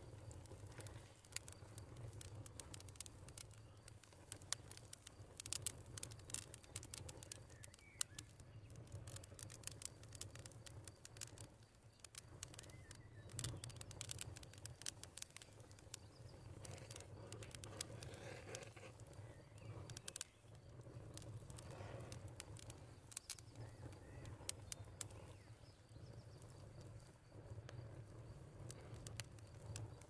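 Faint outdoor ambience: scattered light ticks and patter over a low, steady rumble.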